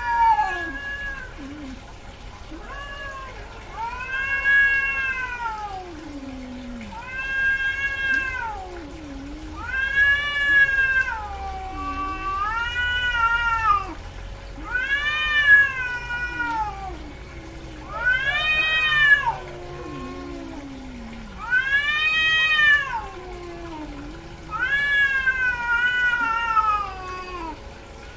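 Female cat in heat caterwauling: a series of long, drawn-out yowls that rise and then fall in pitch, one every two to three seconds, the mating calls of a queen in oestrus.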